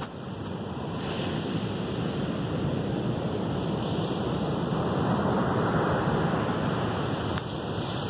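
Ocean surf breaking and washing up a sandy beach: a steady rushing that builds to its loudest about halfway through and eases near the end.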